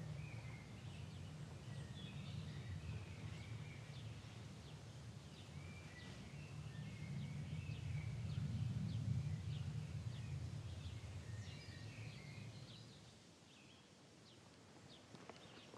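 Outdoor ambience: a low, swelling rumble with small birds chirping here and there above it. The rumble fades near the end, where a few footsteps begin.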